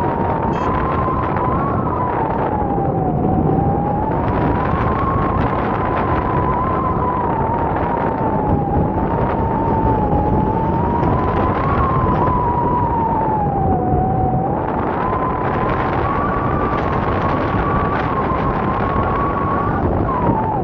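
Wind rushing hard over the microphone in paragliding flight. A single thin whistling tone wavers slowly up and down throughout.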